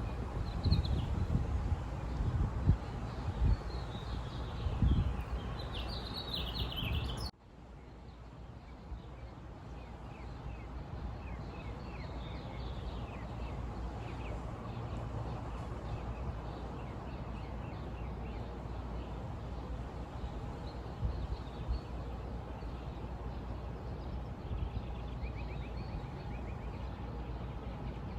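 Outdoor nature ambience with birds chirping, over irregular low bumps and rumble. About seven seconds in it cuts abruptly to a quieter, steadier background with faint scattered bird chirps.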